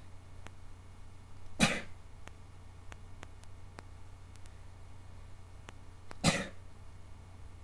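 Two short, sharp sneezes, the first about one and a half seconds in and the second about four and a half seconds later.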